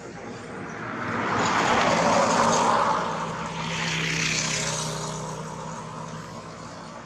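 Engine noise of something passing, with a steady low hum, swelling to its loudest around two to three seconds in and fading away over the following seconds.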